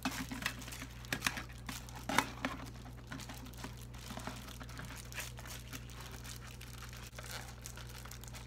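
Homemade pot cozy of Reflectix foil-bubble insulation and foil tape crinkling as it is handled and fitted over a cooking pot. Sharper crackles come in the first couple of seconds, then lighter, irregular rustling.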